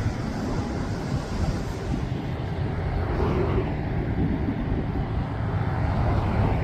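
Heavy surf from high waves breaking and rumbling, with a swell of hiss about two to three seconds in, and wind buffeting the microphone.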